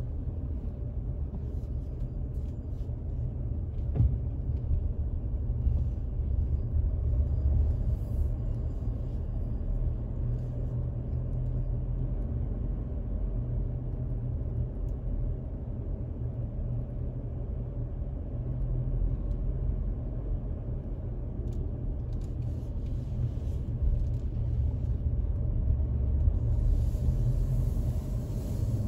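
Car driving along a road: a steady low rumble of tyres and engine, with a brief rise of hiss a couple of times near the end.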